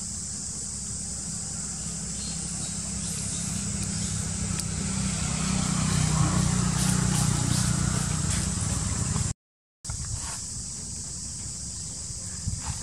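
A motor vehicle passing: a low engine rumble grows louder to a peak about six seconds in, then eases off, over a steady high-pitched drone. The sound drops out completely for a moment about nine and a half seconds in.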